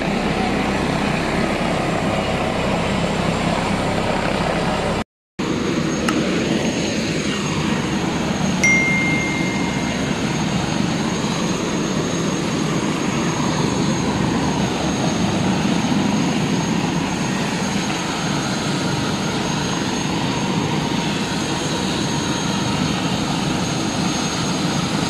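Steady running noise of a helicopter's engine with a thin high whine over it, the helicopter sitting on the road. The sound breaks off completely for a moment about five seconds in, and a short high beep sounds near nine seconds.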